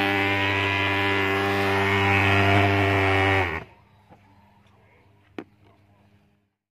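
Swingfog thermal fogging machine's pulse-jet engine running with a steady loud buzz while fogging. The sound cuts off abruptly about three and a half seconds in, leaving a faint hum and a single click.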